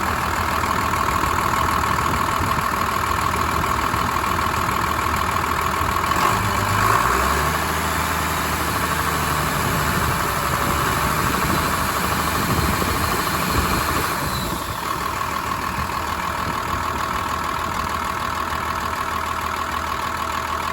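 A 5.9-litre 12-valve Cummins diesel with a P-pump idling steadily, with the air-conditioning blower running on max high.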